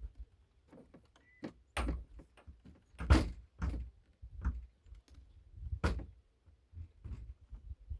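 A series of irregular knocks and thuds on wood, about six separate strikes a second or so apart, from working a nail into a wooden porch door frame.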